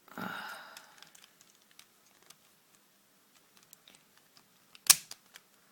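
Plastic pieces of a Dayan 3x3 speedcube being twisted by hand: a brief rustle at the start, then sparse faint clicks and one sharp, louder click about five seconds in as a corner is turned in place.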